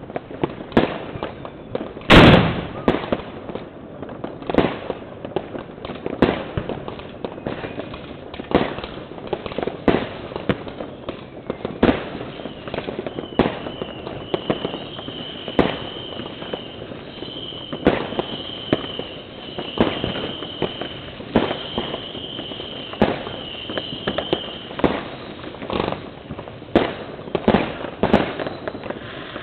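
Fireworks and firecrackers going off: a steady scatter of sharp bangs and cracks, the loudest a big bang about two seconds in. Through the middle a high tone sounds in repeated pulses, about one every second and a half.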